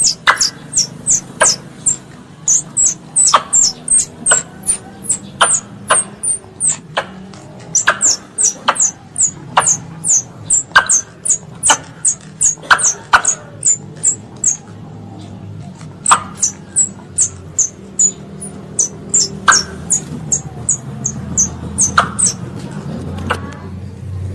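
A squirrel calling, described as a young one calling its mother: a long series of short, high-pitched chirps, each sliding down in pitch with a sharp click, about two to three a second, pausing for a second or two around the middle. A low steady hum lies underneath.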